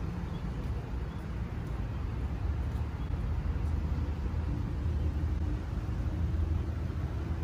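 Outdoor urban ambience: a steady low rumble with no distinct events.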